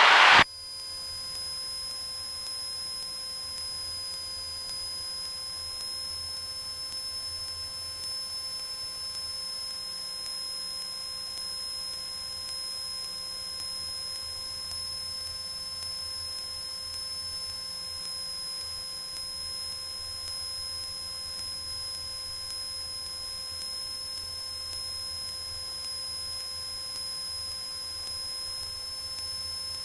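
Steady electrical hum and hiss with a constant high-pitched whine on a Cessna 172's headset intercom feed, with a low drone faintly underneath and no change throughout.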